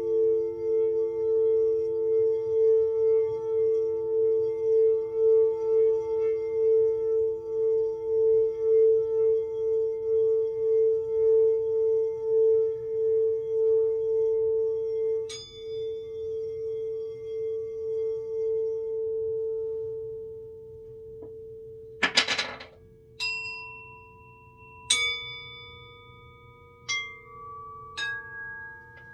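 Singing bowl played round the rim, giving a steady humming tone that swells and fades in a regular pulse, then dies away about two-thirds of the way through. Near the end come a brief rustle and four light strikes that ring at different pitches.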